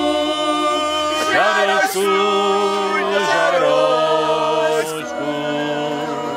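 A group of mainly women's voices singing a Moravian folk song unaccompanied, in long held notes that change pitch about once a second.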